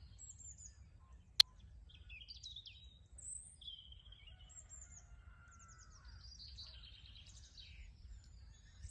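Small birds chirping and trilling in the background, many short calls throughout, with a single sharp click about a second and a half in.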